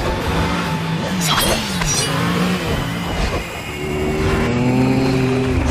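Several motorcycle engines running at speed, their pitch gliding up and down as they rev, then holding and rising near the end. About one and a half to two seconds in, two sharp metallic rings cut through: swords being drawn.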